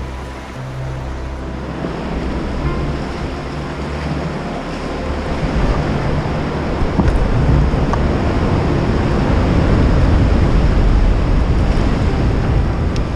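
Sea waves with wind buffeting the microphone, a rushing noise that grows louder over the first half and stays loud.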